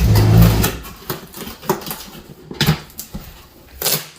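A box and its packaging being handled: a loud rustling noise at the start, then a few separate sharp clicks and knocks spread through the rest.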